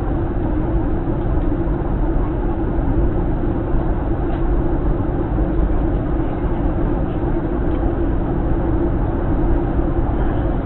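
Steady in-flight cabin noise of a Boeing 737-900: an even, constant drone of airflow and the CFM56 turbofan engines.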